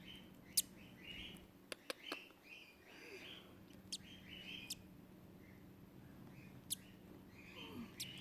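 Newly hatching lutino cockatiel chick peeping in short cheeps, repeated roughly once a second, with a few sharp clicks scattered among them.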